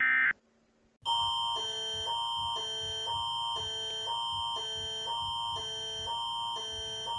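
Canadian Alert Ready emergency attention signal: a loud alarm starting about a second in, alternating between a higher and a lower chord every half second over a steady high tone. It is opened by a short data-tone burst that ends the previous EAS message.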